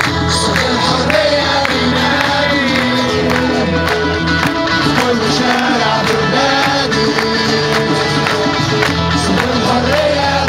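A large crowd singing a song together with a live singer on a loudspeaker system, over a steady beat.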